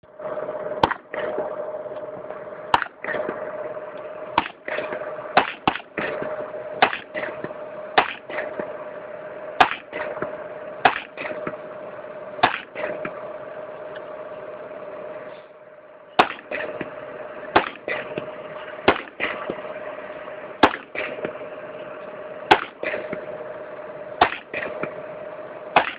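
M4 carbine (5.56 mm) fired in single shots at an uneven pace, roughly one every one to two seconds, with a pause of about three seconds past the middle. A steady hum runs underneath.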